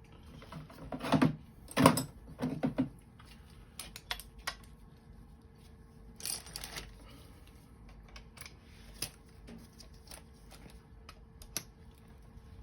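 Scattered clicks and taps of tools and small metal parts being handled while working on an oil burner's nozzle assembly. A few louder knocks come in the first three seconds.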